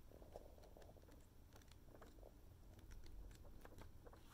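Faint rustling and soft flicks of paper pages being flipped through in a printed booklet.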